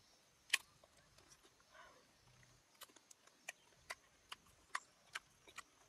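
A series of faint, sharp clicks or taps: one about half a second in, then a steady run of about two to three a second from about three seconds in.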